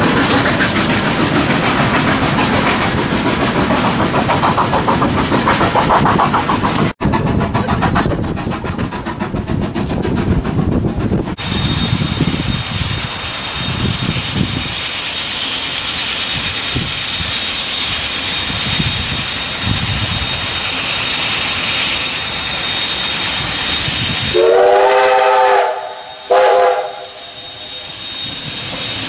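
Steam locomotive JA1271, an NZR JA class 4-8-2, working a train uphill with steady steam exhaust, hiss and rail noise. Near the end the whistle sounds twice, a long blast and then a short one.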